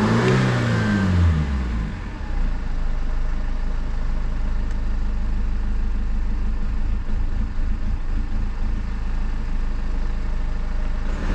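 BMW 520d's M47 four-cylinder diesel engine with the accelerator floored: the revs climb briefly, then sag back about two seconds in and run on at a steady low speed instead of rising. The engine is not responding to full throttle, part of a power-cutting and stalling fault that threw a boost pressure sensor error.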